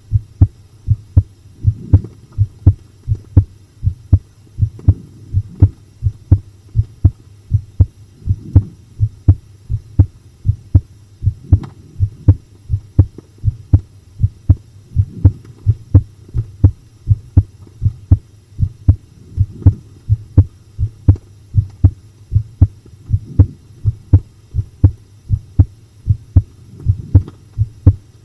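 A human heartbeat recorded close up, pounding: a steady, unbroken run of low, dull thumps in lub-dub pairs.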